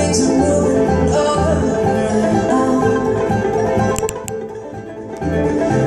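Live bluegrass band playing: banjo, mandolin and acoustic guitars over upright bass notes on a steady beat. The music drops briefly quieter about four seconds in, then comes back up.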